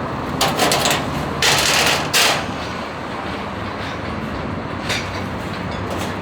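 Unpacking an ATV's shipping crate: a quick run of clicks and knocks, then a short rasping burst about a second and a half in, and one more knock near the end, over a steady low hum.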